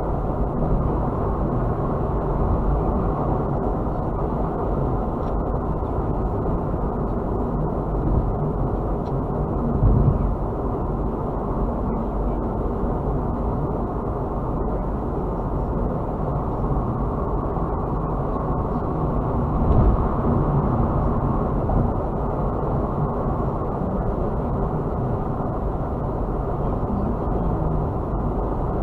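Steady road and engine noise of a car cruising on a freeway, heard from inside the cabin. There are two brief louder thumps, about a third and about two thirds of the way through.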